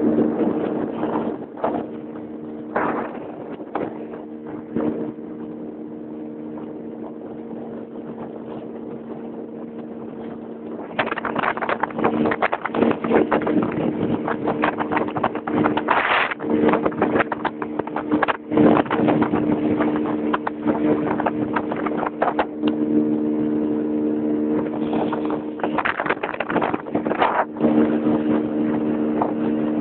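Motorboat engine running steadily at a constant pitch while under way. From about a third of the way in, loud, irregular gusts of wind buffet the microphone over it.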